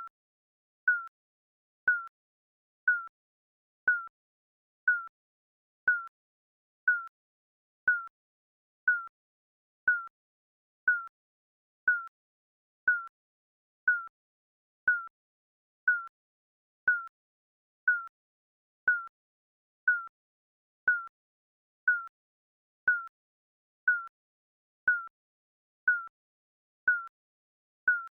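Digital countdown timer beeping once a second: a short electronic beep at the same pitch each time, with silence between.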